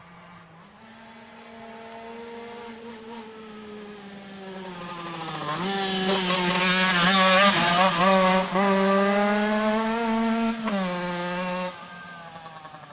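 A Rieju MRT two-stroke dirt bike, kitted to 90 cc with a 28 mm PWK carburettor, rides toward the listener with a buzzing engine note that shifts in pitch with the throttle. It grows louder to a peak about seven to eight seconds in. Near the end the note drops in pitch and then fades.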